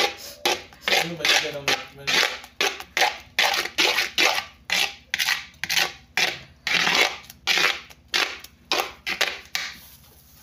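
Spoon stirring a thick palm-oil ncha sauce in an earthenware pot, scraping against the pot wall in quick rhythmic strokes, about two to three a second, that stop shortly before the end.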